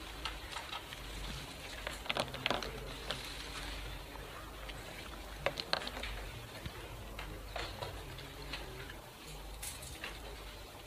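Room tone with a steady low hum and scattered light clicks and taps, a few of them in quick pairs.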